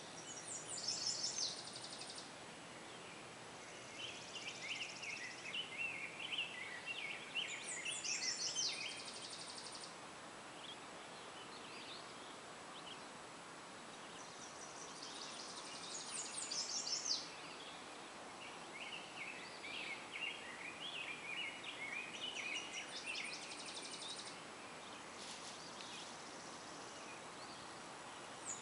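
Songbirds singing: a high, fast trill repeats about every seven or eight seconds, and a lower warbling song runs in long phrases between the trills. Under them lies a steady faint background rush.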